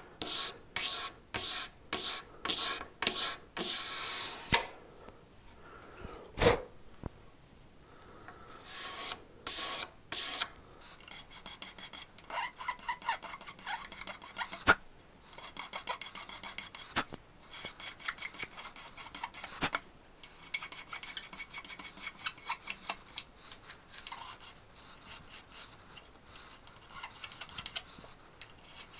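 A sharp utility knife blade scraping along a guitar body's binding in short, repeated strokes. This is a light final clean-up of the binding edge. The strokes come in runs with pauses between, slower at first and quicker and lighter later on.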